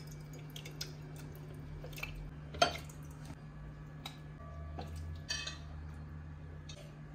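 Steel ladle clinking and knocking against a funnel and glass jar as thick eggplant-and-tomato stew is ladled in: a handful of scattered clinks, the loudest about two and a half seconds in. A steady low hum runs underneath.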